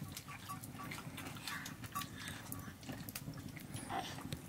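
Scattered light clicks and scrapes of people eating rice by hand from steel plates, with chewing.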